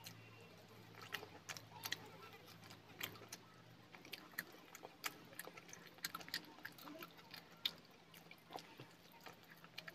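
A person chewing chicken and rice up close, with wet mouth sounds and irregular sharp lip and tongue clicks.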